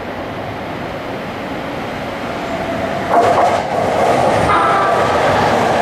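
JR East E231 series 500 Yamanote Line electric train running in past the platform, its rumble on the rails getting louder about three seconds in as it draws level. A steady whine and a few clicks of wheels over the rail joints come in at that point.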